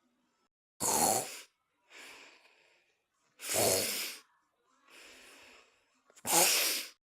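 Snoring: three loud snores roughly every two and a half to three seconds, each under a second long, with softer, airy breaths in between.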